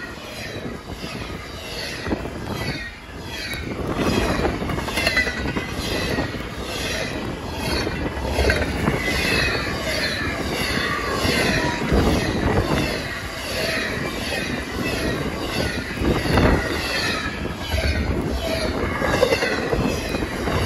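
A CSX intermodal freight train's stack and trailer cars passing at speed: a steady rumble of steel wheels on rail, with a high, wavering wheel squeal running over it.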